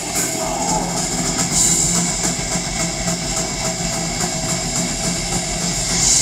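Live metal band playing loud: electric guitars, bass guitar and a drum kit, with a steady cymbal wash over fast drumming.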